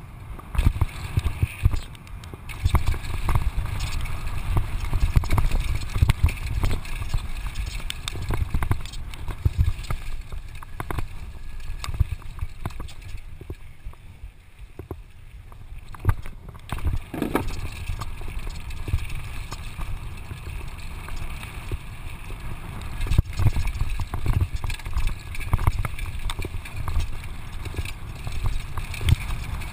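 Downhill mountain bike rattling and clattering over a rough gravel trail at speed, with a constant low rumble of wind buffeting the helmet camera's microphone. It goes quieter for a few seconds in the middle.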